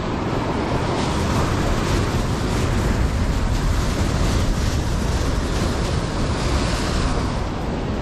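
Surf breaking and washing over a rock breakwall, a steady rushing noise, with wind rumbling on the microphone.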